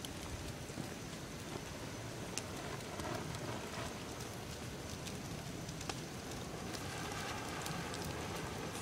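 Bonfire burning: a steady hiss of flames with scattered sharp crackles and pops.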